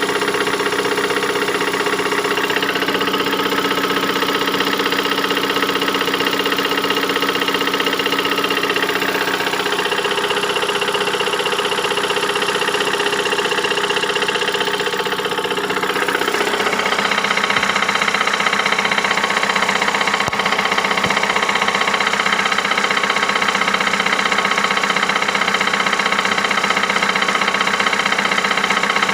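Ford Mondeo IV's 2.3-litre four-cylinder petrol engine running with an unexplained knock, the fault the owner is trying to pin down. About halfway through the sound changes and grows a little louder, then runs steady again.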